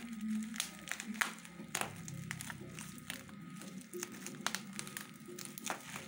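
Plastic bubble wrap and packing tape crinkling and crackling as they are picked at and cut open with scissors: an irregular run of sharp crackles and clicks.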